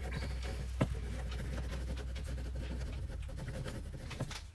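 Pen scribbling on a paper notepad: a steady, scratchy rustle with one sharp tick just under a second in.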